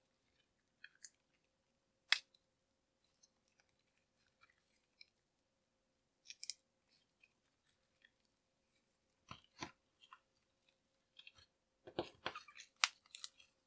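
Homemade slime being handled, giving scattered small sticky clicks and pops, with one sharp click about two seconds in and a denser run of pops near the end.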